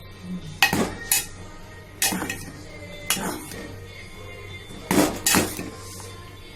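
A utensil clinking against a cooking pot, about six sharp knocks at uneven spacing, over faint background music.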